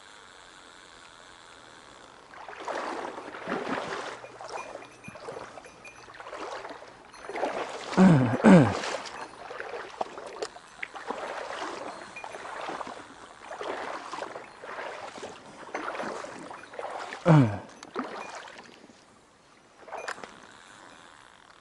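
Water sloshing and splashing in irregular surges, like legs wading through a shallow stream. The loudest splashes come about 8 seconds in, twice in quick succession, and again near 17 seconds.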